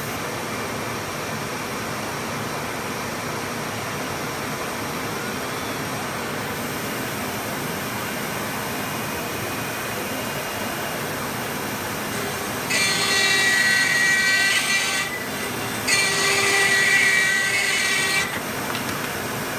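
CAMaster Cobra 508 ATC CNC router spindle cutting into plywood twice, each cut about two seconds long, starting roughly 13 and 16 seconds in. Underneath runs the steady whoosh of the machine's dust-collection vacuum.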